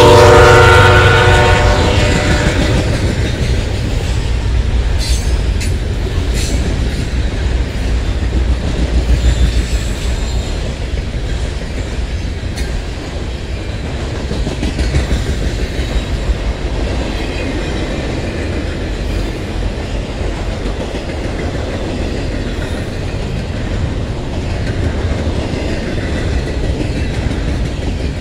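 Freight train passing close by: the diesel locomotive's horn chord sounds and cuts off about two seconds in as the engines go by. Then the intermodal cars roll past with a steady loud rumble and wheel clicks.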